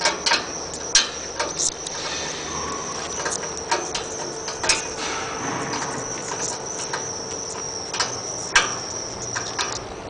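Hands pressing wet yellow clay into the door seam of a carbonization furnace, heard as scattered soft taps and clicks, over a steady high-pitched whine.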